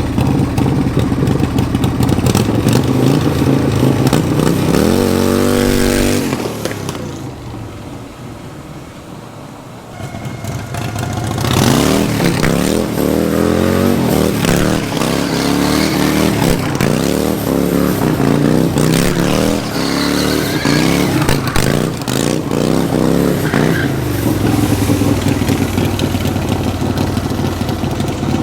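Harley-Davidson 1300 cc V-twin engine in a go-kart, revving up, then quieter for a few seconds, then revved hard again and again for about twelve seconds before settling to a steady idle near the end.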